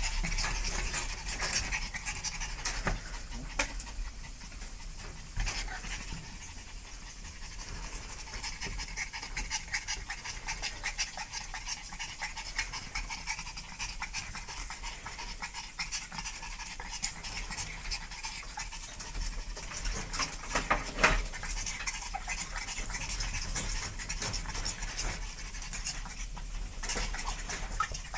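Small dogs panting, with many scattered light clicks and taps and one louder tap about two-thirds of the way through.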